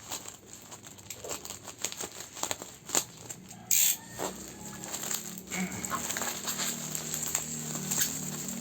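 Plastic parcel packaging crinkling and rustling as it is handled and pulled open by hand, with scattered crackles and one louder rustle about four seconds in.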